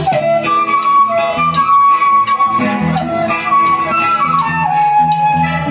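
Transverse flute playing a melodic instrumental interlude, held notes stepping from one pitch to the next, over a live band's accompaniment with regular drum beats.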